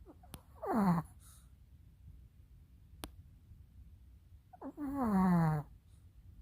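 A dog snoring in its sleep: a faint, steady low rumble, broken twice by whining groans that fall in pitch, a short one near the start and a longer, drawn-out one about five seconds in.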